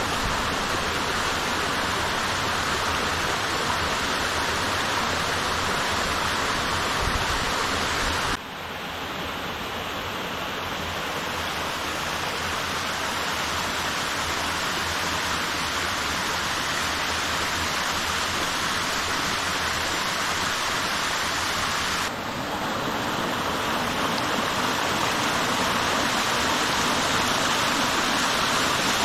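A 25 m branching waterfall running on low flow: a steady rush of falling and splashing water. The sound drops and changes character suddenly twice, about eight seconds in and about twenty-two seconds in.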